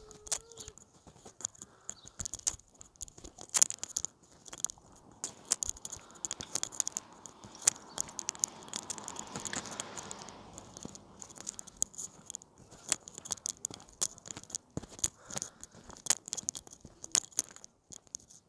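Crackly handling noise from a hand-held phone rubbing and knocking against its microphone while walking: irregular clicks and scrapes. A broad swell of noise rises and fades through the middle.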